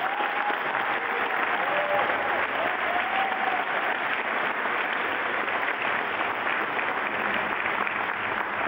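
Audience applauding steadily, a crowd's hand-clapping, with a few faint voices calling out over it in the first few seconds.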